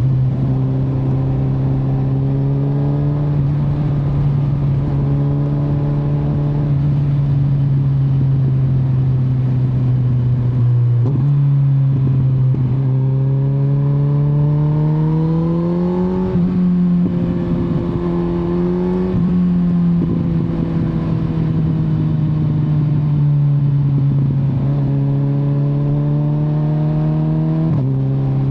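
Kawasaki Z900's 948 cc inline-four engine and exhaust under way, the note climbing gradually to a peak about two-thirds through and easing off again as the throttle changes. The pitch jumps suddenly a few times, as at gear changes, over steady wind and road noise.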